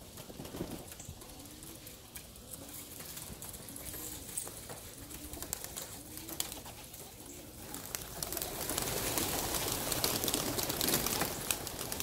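Young homing pigeons cooing, a low coo repeated about once a second. In the last few seconds a rising rustling clatter of wings as the flock is pushed off the loft roof and takes flight.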